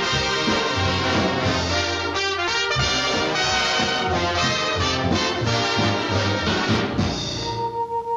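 Brass-led orchestral cartoon title music, with trombones and trumpets over the orchestra; near the end it settles onto a few long held notes.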